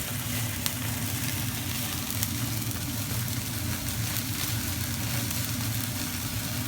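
Diced lamb on skewers sizzling over a gas-fired mangal grill, with the steady low rush of the gas burners running on full under it and a few sharp pops of fat.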